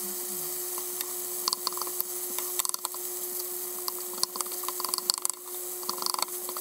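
Fried rice with shrimp and green onion sizzling in a nonstick frying pan, with a spatula repeatedly tapping and scraping the pan as it breaks up clumps of cold rice.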